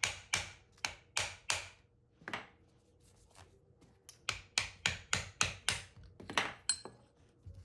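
Light hammer taps on a steel wedge tool set in a Jacobs drill chuck, driving out its Morse taper adapter. The metal-on-metal taps come about four a second, in two runs with a pause of about two seconds between them, and the last tap rings briefly.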